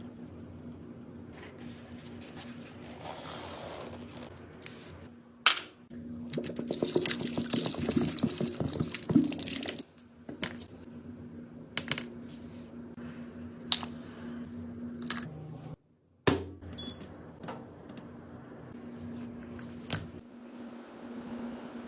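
Close-up handling of small hard objects: scattered sharp clicks and taps, with a dense stretch of fine crackling and scraping about six to nine seconds in, over a steady low hum.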